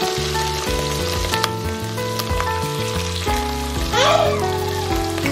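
Shrimp and chopped garlic sizzling in melted butter in a frying pan. About four seconds in the sizzle swells louder as more raw shrimp go into the hot butter. Background music plays throughout.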